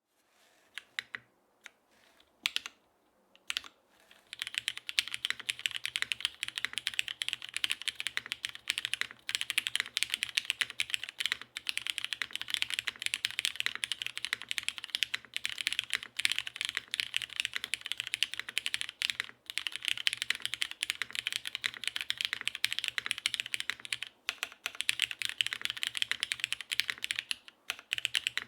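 Custom 80% mechanical keyboard with Cherry HG Black linear switches and GMK doubleshot keycaps on a top-mounted aluminium half plate with no foam, typed on: a few separate keystrokes, then fast continuous typing from about four seconds in, pausing briefly twice near the end.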